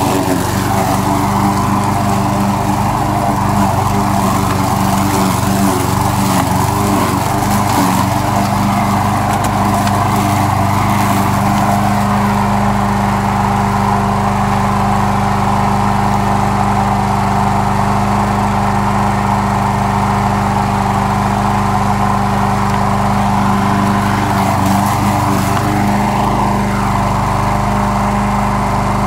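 Troy-Bilt push lawn mower's small single-cylinder engine running steadily under load while its blade cuts grass.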